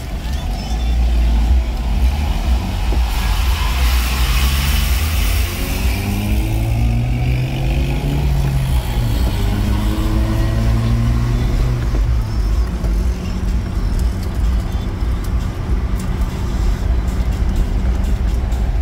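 Car heard from inside the cabin, accelerating away from a standstill: the engine note climbs and drops back several times as it shifts up, over a steady low road rumble. There is tyre hiss on the wet road surface.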